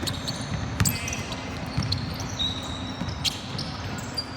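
Basketball game play on a gym court: a ball bouncing, with several sharp knocks on the floor and short high squeaks.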